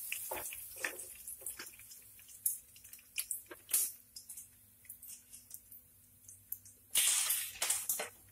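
Hot cooking oil in a frying pan sizzling and spitting just after fried fish is lifted out. The sizzle fades into scattered sharp pops, then a denser spell of sizzling comes about seven seconds in.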